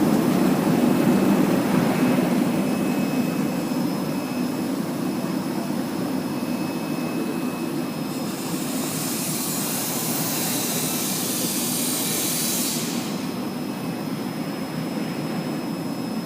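Fruit and vegetable washing machine running, a steady mechanical noise with a faint steady whine. A high hiss joins about eight seconds in and stops about five seconds later.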